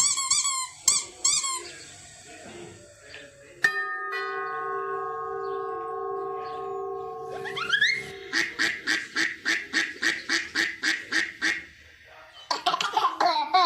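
A string of odd sound effects played back in turn: warbling chirps, then a sudden steady tone held about four seconds that ends in a rising glide, then a fast run of short repeated honk-like calls, about four a second.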